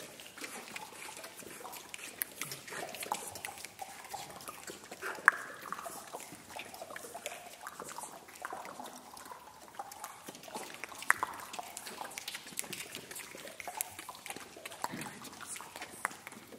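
Choir making scattered mouth sounds: many tongue clicks and drip-like pops, the sharpest about 5 and 11 seconds in, with soft short vocal glides between them. It is a vocal text-score piece evoking the ocean floor.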